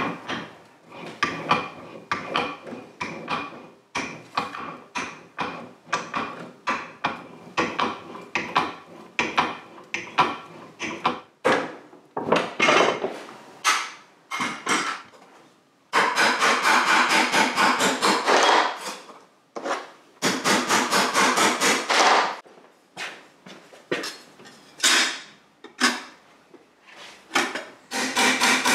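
Hammer tapping on sheet steel, shaping a repair patch for a rotted exhaust silencer. Irregular blows at first, then fast runs of many quick taps a second in the second half.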